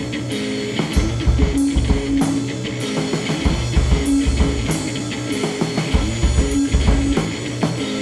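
Rock music: a band with drum kit and electric guitar playing a steady beat.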